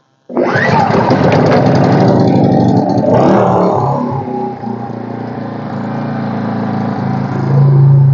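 Petrol inverter generator engine just started, running fast and loud with its pitch rising. About three to four seconds in it drops to a lower, steady speed.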